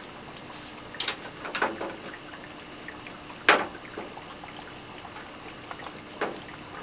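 Aquarium water trickling steadily. Over it come a handful of sharp clicks and knocks as a power plug and its cord are handled, the loudest about three and a half seconds in.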